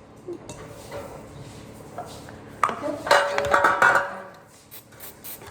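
Kitchenware clattering as batter is handled for pouring into the cake pan: light knocks, then a loud burst of clinks with a brief metallic ring about three seconds in, followed by a few soft taps.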